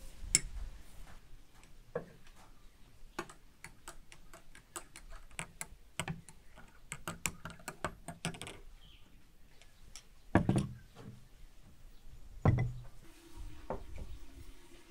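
A metal teaspoon clinking and tapping against a glass tumbler while dried saffron threads are spooned into it, a run of small light clicks. Two heavier knocks in the second half, as glassware and bowls are set down on a wooden table.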